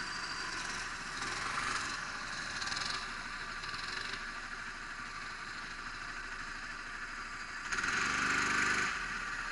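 Go-kart engines running at low speed, with a louder surge of engine sound lasting about a second near the end.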